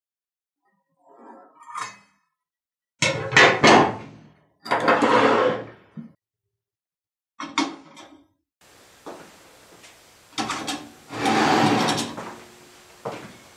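Clanks and scrapes of the bare iron cleaver blade being handled and laid on a wooden workbench: a few sharp knocks, then a longer scrape. More knocks and a scrape of handling follow.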